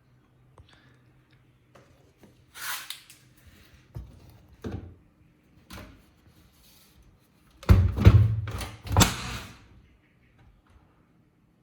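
Washing machine being handled: a few knocks and rustles, then two heavy thumps about eight and nine seconds in.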